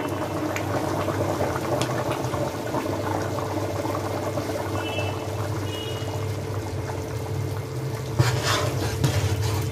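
Large pot of chicken kurma gravy boiling vigorously, with a steady bubbling over a low hum. Near the end a ladle goes into the gravy and stirs it, adding a few sharper clinks and sloshes.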